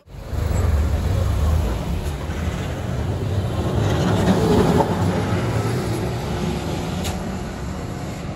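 Open-sided Santa Teresa tram (bondinho) running on its street rails, a steady rumble and rattle heard from aboard.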